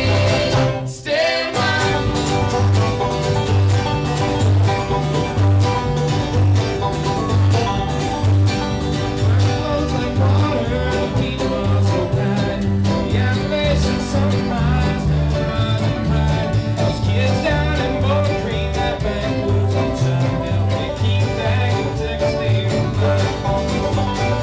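Bluegrass band playing, with banjo and guitar over a steady pulsing bass line. The sound briefly drops out about a second in.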